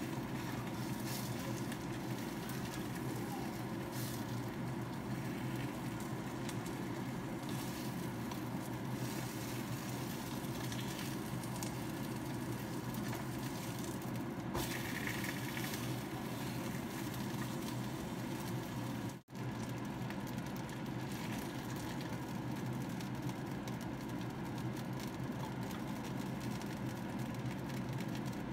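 Boneless chicken thighs frying in oil in a pan: a steady sizzle, with a few light spatula scrapes and taps as the pieces are turned.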